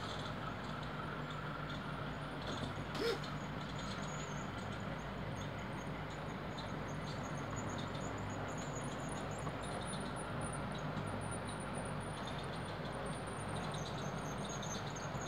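HO-scale model train running along the track: a steady hum of the motor and wheels rolling on the rails, with a single click about three seconds in.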